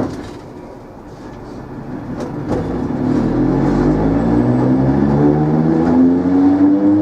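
Electric traction motors of a Dutch NS Plan V (Mat'64) electric multiple unit, humming and climbing steadily in pitch as the train accelerates away. A single sharp knock comes at the very start.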